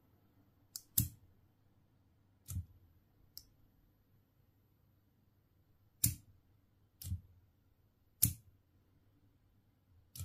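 Small electric solenoid lock clicking as its plunger snaps in and out when its coil-driven circuit is switched on and off: about eight sharp clicks at uneven intervals, the loudest about a second in, about six seconds in and near the end.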